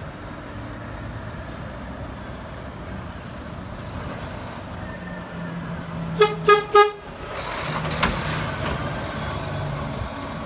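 Three quick, short blasts of a Scania truck's horn about six seconds in, followed by the truck's diesel engine running louder as it drives past.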